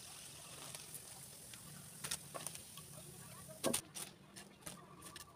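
Breaded bread rolls deep-frying in oil in a wok, a steady sizzle. About three and a half seconds in the sizzle stops, and there is a sharp knock followed by a few light clicks.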